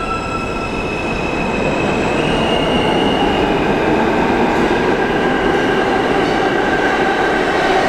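Subway train approaching through the tunnel and entering the station: the rumble of its wheels on the rails grows louder over the first couple of seconds, then holds steady as it nears the platform. Thin, high wheel-squeal tones sound at first.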